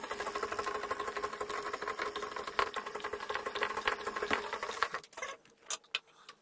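An old sewing machine, in use since 1955, running fast and steadily with its needle disengaged to wind the bobbin. It stops about five seconds in, followed by a few light clicks.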